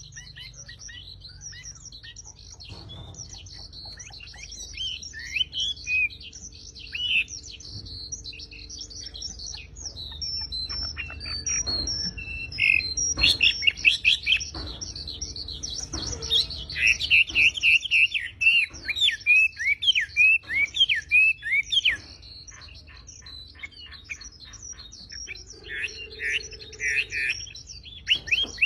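A wambi songbird singing a long, busy run of sharp chirps and rapid trills in quick bursts. It gets louder and denser about halfway through, with loud fast runs near the end.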